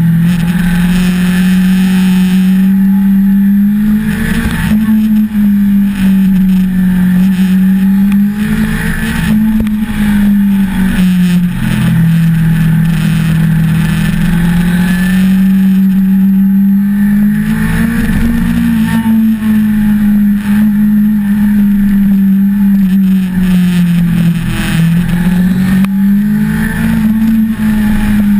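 Onboard sound of a 1988 Suzuki GSX-R750J's inline-four engine pulling uphill, its note rising and falling steadily as the throttle is worked through a series of bends, with a short drop in pitch about every six to seven seconds.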